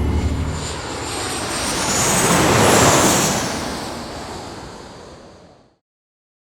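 A passing engine: a low engine hum gives way to a rushing noise that swells to a peak about three seconds in, then fades away and cuts off suddenly near the end.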